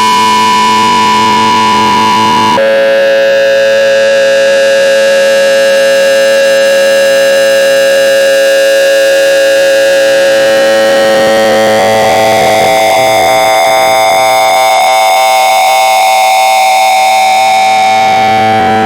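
Harsh electronic tone sound with a dense buzzy layer of overtones, held steady and jumping between pitches. A high tone drops suddenly to a lower one after about two and a half seconds, then shifts up to a middle pitch with slowly drifting overtones around twelve seconds in.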